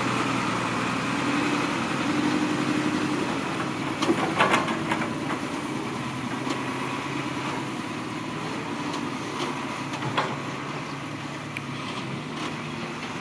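Diesel dump truck engine running steadily at idle, with a few short knocks about four seconds in and one more near the end.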